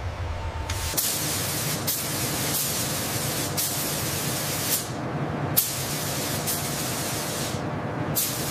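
A gravity-feed air spray gun hissing as it sprays coating onto an aircraft panel. The hiss comes in a run of bursts about a second or two apart, each starting sharply. A low factory rumble gives way to the spray about a second in.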